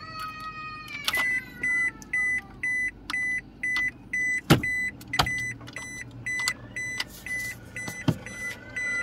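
Toyota Innova's dashboard warning buzzer beeping steadily, about two short beeps a second. A falling whine is heard at the very start, and a few sharp clicks cut in, the loudest near the middle.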